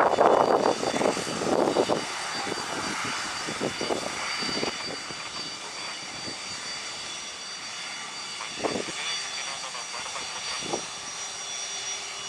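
Cessna Citation CJ2+ twin turbofan jet engines running with a steady high whine over a rushing noise. Strong wind buffets the microphone in loud gusts during the first couple of seconds.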